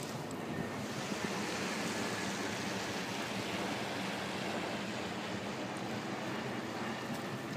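Steady wind rushing over a phone's microphone, an even hiss with no rhythm.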